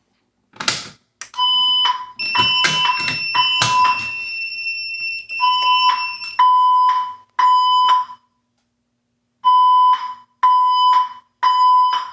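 A fire alarm pull station is pulled with a sharp clack. About half a second later the fire alarm sounds a high-pitched pulsing tone in the temporal-three evacuation pattern: three short blasts, a pause, then three more. A second, higher steady tone overlaps the pulses for a few seconds as the alarm starts.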